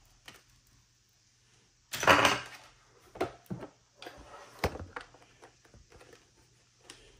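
Handling noise from a plastic Yealink T41S IP desk phone and its cords as it is picked up and turned over: a loud clatter about two seconds in, then a few scattered knocks and clicks.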